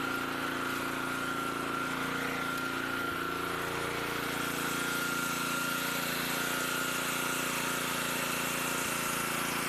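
Pressure washer running steadily, a constant motor drone with a steady high tone above it.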